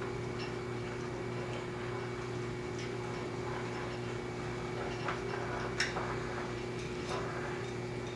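Steady hum with scattered light ticks and clicks, the sharpest about six seconds in.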